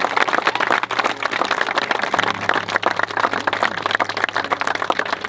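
Crowd applauding: many hands clapping densely and steadily.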